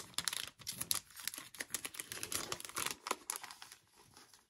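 Clear plastic sleeve crinkling and paper sticker sheets rustling as they are worked out of the sleeve by hand: a quick run of short crackles that dies down about three seconds in.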